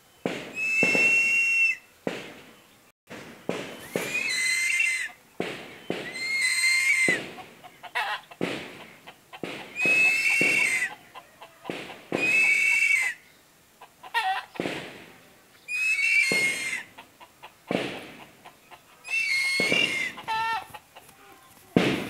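Crested serpent eagle giving about seven long, harsh calls a few seconds apart, with shorter calls between them: the repeated crying of a hungry bird.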